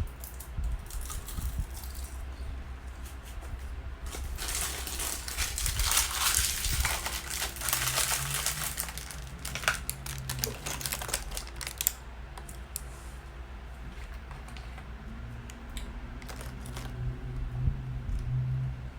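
Close-miked crunching and crinkling of roasted seaweed snack sheets being bitten and chewed, a dense run of crackly crunches through the middle stretch, sparser at the start and end.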